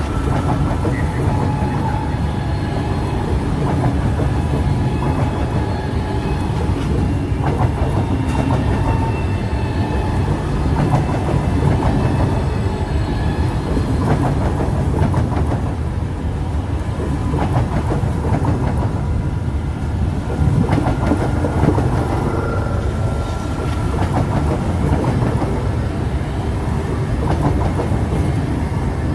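SBB CFF FFS electric passenger trainset rolling past, a steady rumble of wheels on rail with repeated clicks as the wheels cross rail joints.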